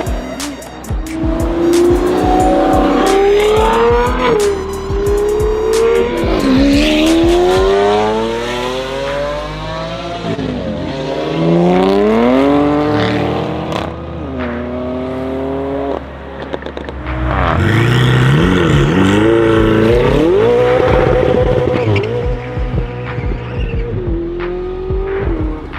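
Modified sports car engines revving hard and accelerating, the engine pitch climbing and dropping back several times as the gears change, with sharp exhaust pops and crackles in the first few seconds.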